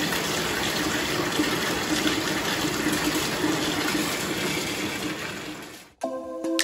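Bathtub faucet running, water pouring steadily into the filling tub for a bath; it fades out near the end.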